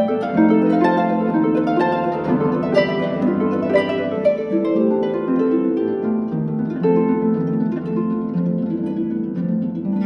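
Concert pedal harp played solo: a quick stream of plucked notes ringing over one another, recorded on a mobile phone.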